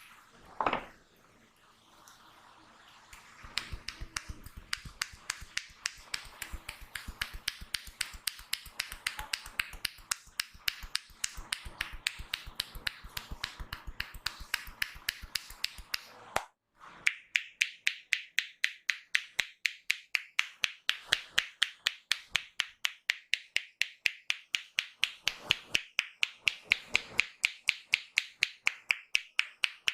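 Rapid rhythmic hand strikes of a percussive head massage: sharp claps and slaps, several a second. After a brief break about halfway, they come louder and crisper at about three a second.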